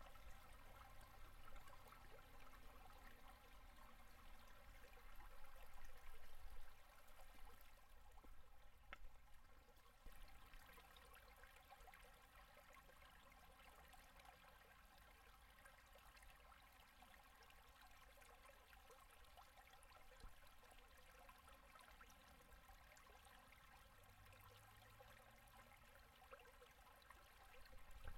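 Faint running water: a shallow river at low winter flow gurgling over and under its ice. It grows fainter after about ten seconds.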